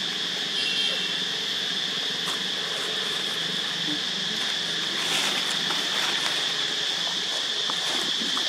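Steady high-pitched drone of insects, unbroken throughout, with a few faint short chirps about a second in.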